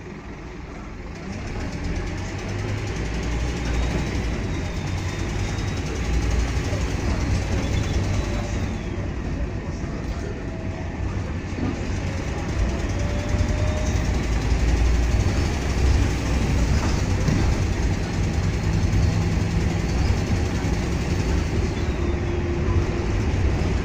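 Interior sound of a Scania K230UB Omnilink bus's diesel engine and ZF gearbox as the bus pulls away about a second in and drives on. A deep engine drone runs under a thin high whine that rises and falls several times as the bus goes through the gears.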